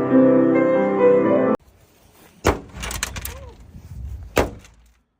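Piano music that cuts off abruptly about a second and a half in, followed by a few sharp bangs with a low rumble between them.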